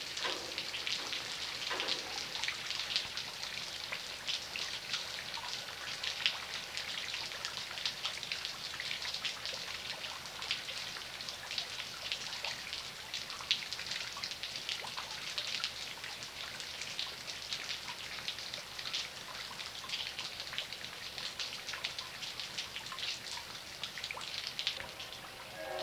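Rain falling steadily, with many separate drops ticking irregularly close by.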